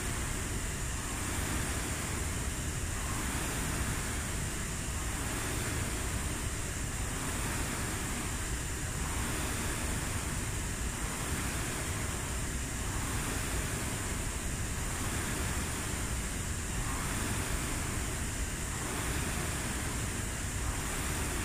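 Air-resistance rowing machine's fan flywheel whooshing, swelling with each pull at about one stroke every two seconds.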